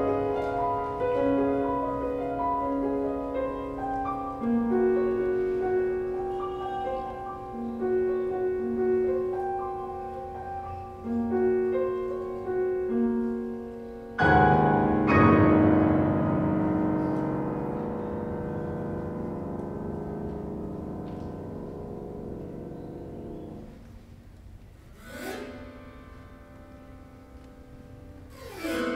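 Grand piano played solo in a contemporary classical piece: a passage of separate melody notes over lower notes, then a loud chord struck about halfway through that is held and slowly dies away for several seconds. Near the end come two quick sweeping gestures, the second leading into a new loud attack.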